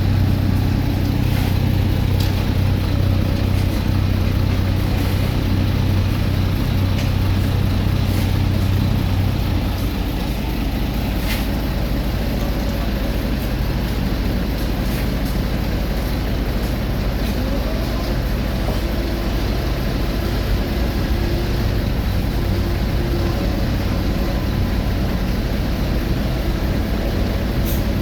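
Heavy road-paving machinery engines running steadily. A deep hum is strong at first and eases about ten seconds in, with a few sharp clicks.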